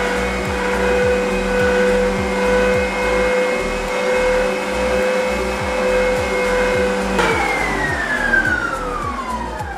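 Electric stand mixer motor running steadily while its beater creams margarine and icing sugar in a steel bowl. About seven seconds in it is switched off, and its whine falls steadily in pitch as the motor spins down.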